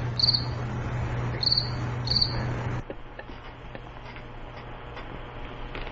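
Crickets-chirping sound effect, the stock gag for dead air: three short high chirps over a low hum that cuts off suddenly about three seconds in. Faint room tone with a few light ticks follows.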